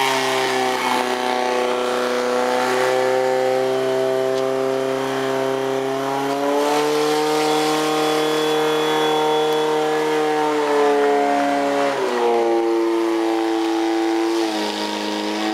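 Portable fire pump engine running hard at high revs while it pumps water out through the attack hoses. Its pitch steps up and down several times as the load changes.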